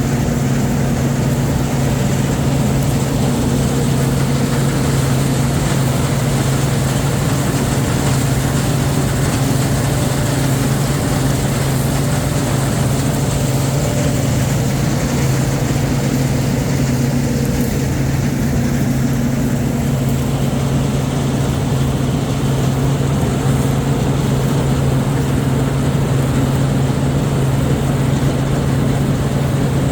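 Farm machinery engine running steadily at a constant speed: an even, deep hum with no changes in pitch or load.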